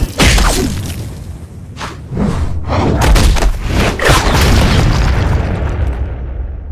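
Animated fight sound effects: a string of heavy booms and impacts with deep rumble, ending in a noisy stretch that fades out near the end.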